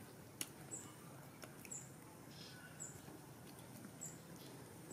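Quiet, with a faint short high chirp repeating about once a second and a few soft clicks.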